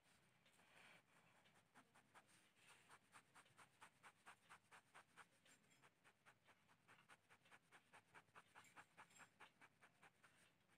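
Faint scratching of a pen on paper in quick, even back-and-forth hatching strokes, about four strokes a second.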